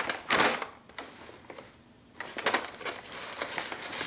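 Brown paper bag and cellophane wrapping crinkling and rustling as a package is handled and pulled out of the bag, with a quieter pause in the middle.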